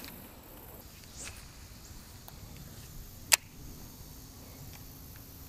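Baitcasting reel giving a single sharp click a little past halfway as it is handled after a cast, over faint quiet lakeside background.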